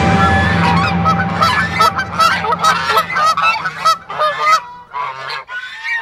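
A flock of domestic geese honking: many short, overlapping honks in quick succession that thin out near the end.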